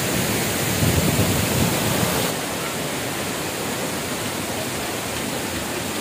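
Waterfall in heavy monsoon flow, water rushing over rock steps: a steady, dense rush of noise that drops a little in level about two seconds in.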